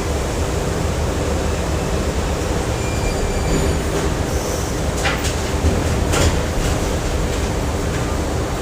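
Factory machinery running: a steady heavy rumble with a constant hum, and a couple of short metallic clanks about five and six seconds in.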